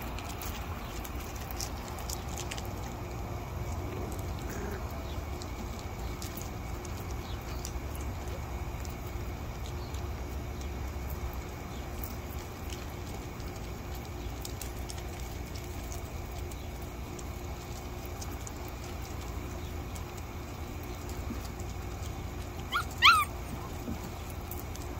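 A young Sheepadoodle puppy gives two short, high yelps in quick succession near the end, over a steady low background rumble and faint scattered clicks.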